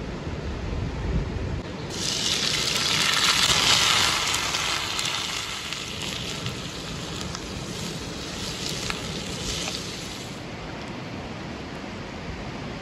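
Chopped onions hitting hot oil in a pan over a wood fire and sizzling: the sizzle starts suddenly about two seconds in, is loudest at first, then settles and drops away about ten seconds in. A steady rush of river water runs underneath.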